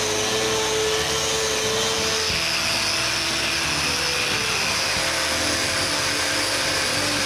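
An electric sander running steadily as it sands wooden stair guardrail posts.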